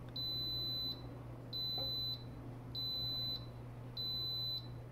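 Instant Pot electric pressure cooker beeping: four identical high, steady beeps of about three-quarters of a second each, a little over a second apart. The owner takes this as the signal that the Sauté function has reached its maximum and switched itself off.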